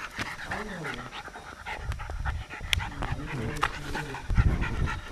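Small black dog panting, with short knocks and clicks throughout and a low rumble that peaks about four and a half seconds in.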